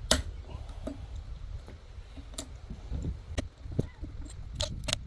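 Scattered sharp knocks and clicks, about half a dozen spread unevenly, over a low steady rumble: hand work getting the metal hardware out of an old wooden hydro pole.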